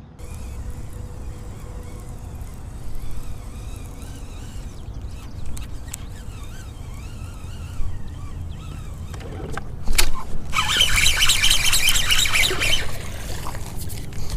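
A bass being reeled in hard to the boat on a baitcasting reel: a sharp snap about ten seconds in, then a couple of seconds of loud, fast, dense noise as the fish comes in. A steady low rumble sits underneath.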